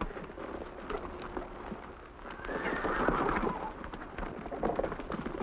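Several horses' hooves beating as riders set off at a gallop, with a horse whinnying about halfway through.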